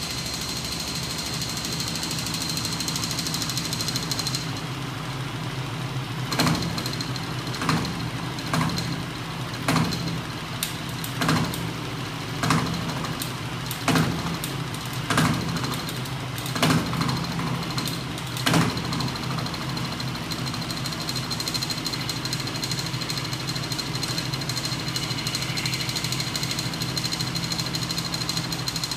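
Homemade crank-and-flywheel machine driven by small DC electric motors, running with a steady hum and a high whine. From about six seconds in, a sharp knock comes roughly every second and a quarter, about ten times, then it runs steadily again.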